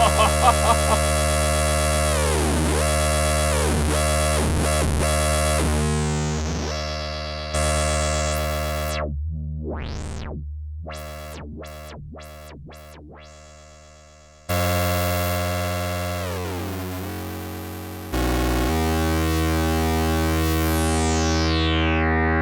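Moog Werkstatt-01 analog monosynth holding a low, buzzy droning note while its filter sweeps the brightness up and down. Midway the sound fades away, then comes back in abruptly at full strength, with another sudden change a few seconds later.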